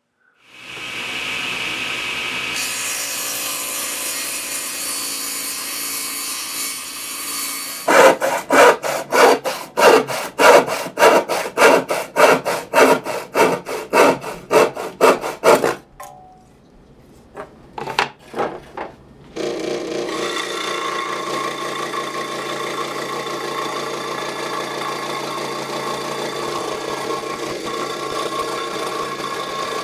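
A run of loud, even sawing or rasping strokes on wood, about two a second, stops abruptly. After a short lull with a few clicks, a benchtop scroll saw starts up and runs steadily, its reciprocating blade cutting through a pine board.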